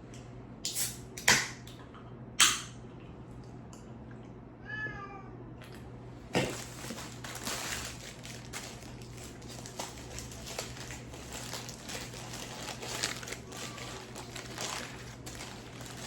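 A few sharp knocks, then a short cat meow about five seconds in, followed by steady crinkling and rustling of paper being handled, with many small clicks.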